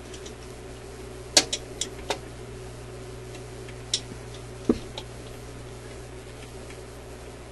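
Sharp clicks and taps of a hand tool against the turntable spindle and a washer down in the spindle well while trying to lift the washer out: four quick clicks about a second and a half in, then three more between four and five seconds in. A steady hum runs underneath.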